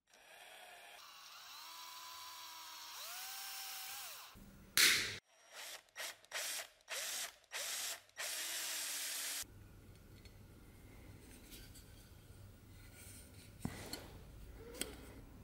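Cordless drill with a thin bit drilling a small hole through the metal collar into the wooden handle, run in a string of short trigger bursts and then one longer run that stops a little past halfway. After it, quieter handling with a few light clicks near the end.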